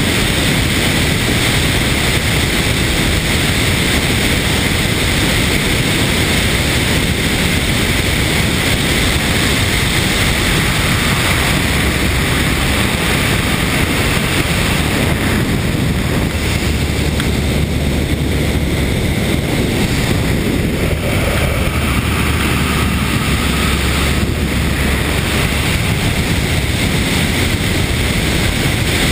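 Airflow rushing over a camera mounted on the wing of a Van's RV-8A light aircraft in flight, with the drone of its propeller engine mixed in. The rush is loud and steady, and it turns deeper for about ten seconds in the middle while the plane banks steeply.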